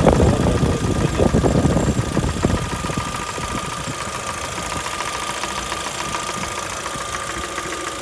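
Lada Vesta's four-cylinder engine idling hot with a rapid knocking rattle from the top end, which the owner traced to the camshaft rather than the hydraulic lifters or pistons. The sound is heavier and rumbling for the first two or three seconds, then settles to an even idle.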